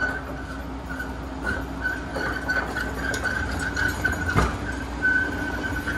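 Steady mechanical hum with a wavering high-pitched whine, and one sharp metallic clank about four and a half seconds in as the steel parts rack at the curing-oven door is handled.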